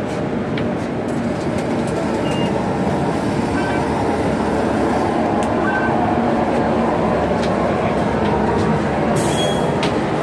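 Interior running noise of a moving public-transport vehicle: a steady rumble and hiss that swells a little early on, with scattered small clicks and rattles.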